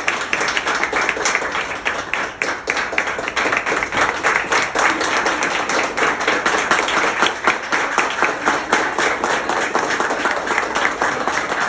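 A group of people applauding, many hands clapping together without a break.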